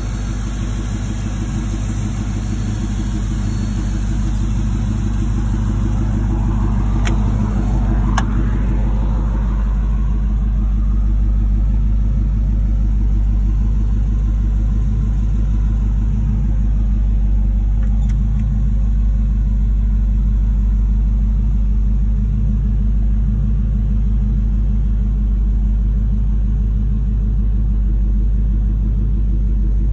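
A 1940 Ford panel truck's engine idling steadily. Two sharp clicks come about seven and eight seconds in.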